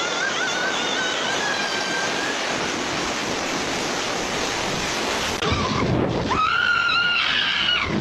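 AI-generated stormy wind and rain noise, with a wavering high whistle over the first two seconds. After a sudden change about five seconds in comes a low rumble, then a monkey's high, wavering screech near the end.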